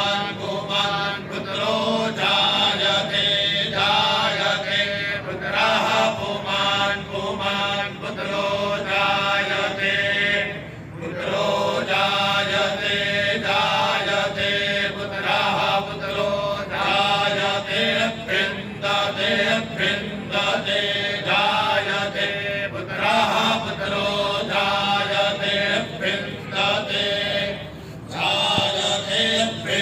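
Group of men chanting Vedic mantras in unison, with a short pause for breath about a third of the way through.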